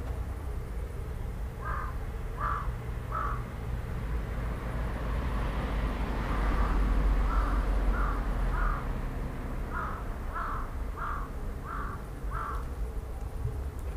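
A crow cawing in short, harsh caws: three caws about two seconds in, then a longer run of about eight evenly spaced caws from about seven seconds in.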